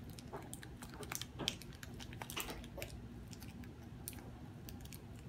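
Faint, irregular crackling and clicking of plastic toy packaging being handled and torn open.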